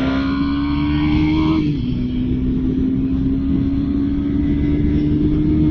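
KTM 250 Duke's single-cylinder engine accelerating under load, its note climbing steadily. About one and a half seconds in it drops with an upshift, then climbs again through the next gear.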